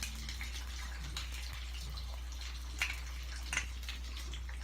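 Cumin and mustard seeds sizzling faintly in hot desi ghee on a low flame, with a few small pops, over a steady low hum.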